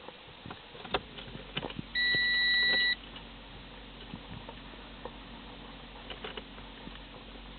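A single steady electronic beep lasting about a second, coming about two seconds in, preceded by a few sharp clicks.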